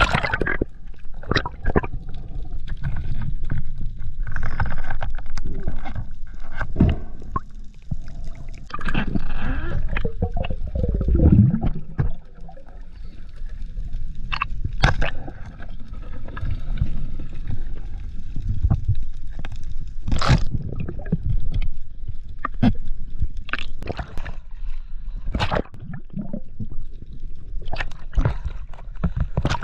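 Water gurgling and sloshing around an action camera moving at and below the sea surface while snorkelling, with a steady low rumble and irregular splashes and bubbling throughout.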